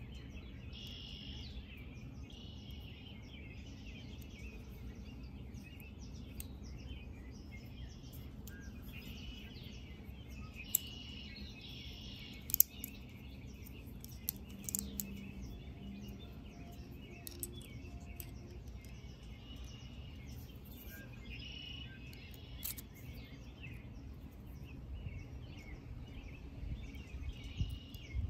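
Small birds chirping now and then over a steady low outdoor rumble, with a few sharp clicks.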